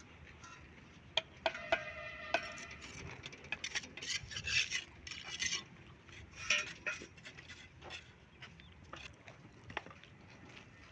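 Mason's steel trowel on bricks and mortar: several sharp metallic clinks, one ringing briefly, then scraping strokes.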